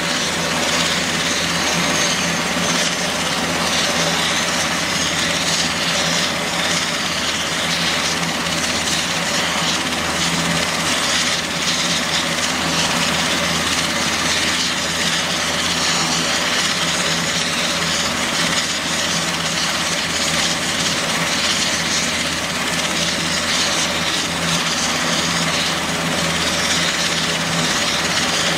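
A Super Puma-family twin-turbine helicopter running on the ground with its rotors turning. A steady, loud rush of turbine and rotor noise with a high whine over it, holding even throughout.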